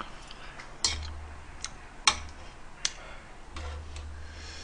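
Chopsticks clicking against a metal pot, about four sharp separate clicks roughly a second apart, with soft low handling rumbles between them.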